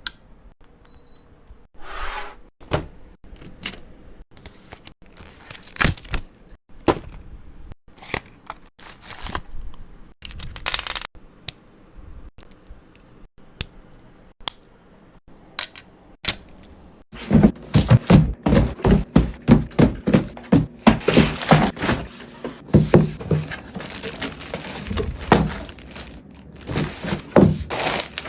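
Items and packaging being handled during an unboxing: scattered taps and clicks, then from a little past halfway a loud, dense run of rapid crinkling and tapping.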